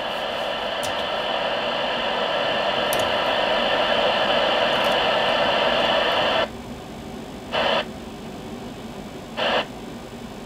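Receiver hiss from an Icom IC-201 2-metre transceiver's loudspeaker, steady until it cuts off abruptly about two-thirds of the way in, then two short bursts of the same hiss near the end.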